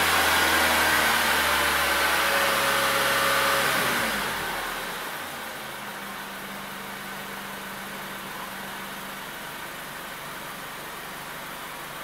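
2004 Honda Civic's 1.7-litre four-cylinder engine running steadily at about 2,500 rpm. About four seconds in, the revs drop back, and it settles to a quieter idle around 700–800 rpm.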